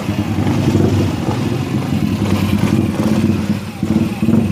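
Yamaha Mio i 125 scooter's single-cylinder engine running with a fast, steady pulsing beat.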